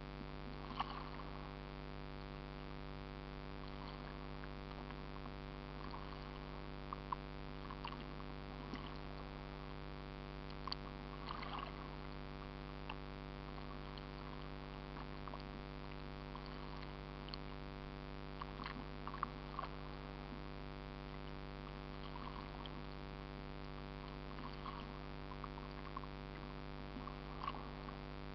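Steady mechanical hum with a few faint splashes and ticks now and then.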